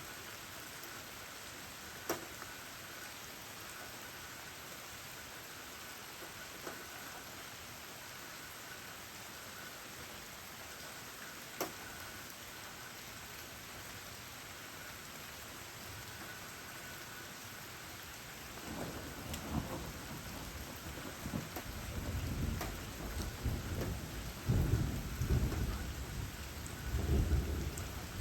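Steady rain falling, with a few sharp drips striking a hard surface. About two-thirds of the way through, a low, rolling rumble of thunder builds and goes on.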